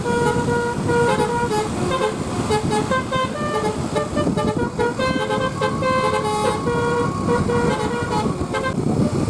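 Basuri multi-tone 'telolet' bus horn playing a quick tune of short stepped notes, repeated, over the rumble of road and engine noise.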